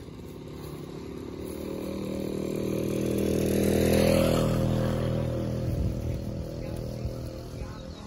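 A motor vehicle driving past on the road: its engine grows louder to a peak about halfway through, then fades, its pitch dropping as it goes by.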